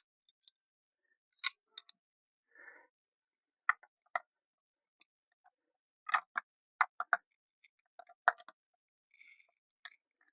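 Irregular small clicks and taps, with a couple of brief scrapes, from parts and hand tools being handled during engine reassembly. There is a quick run of clicks about six seconds in.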